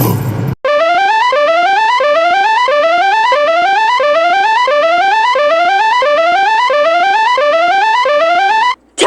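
A mock Emergency Alert System alarm tone for a fictional micronation. A pitched, instrument-like tone plays a quick rising stepwise run over and over, about one and a half runs a second, and cuts off abruptly near the end. It follows the brief tail of drum-heavy music that stops about half a second in.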